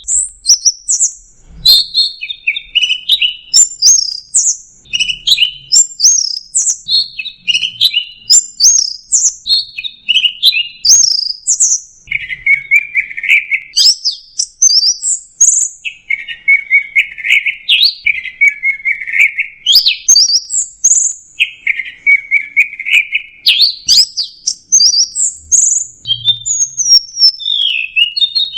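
Orange-headed thrush (anis merah) singing nonstop: a fast, varied run of short whistled and chattering phrases, with lower, raspy passages in the middle.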